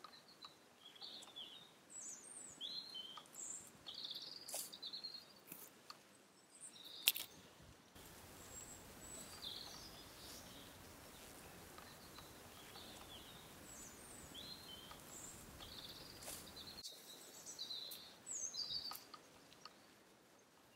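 Songbirds singing in short, high, warbling phrases again and again, with one sharp click about seven seconds in and a faint, steady rushing noise through the middle stretch.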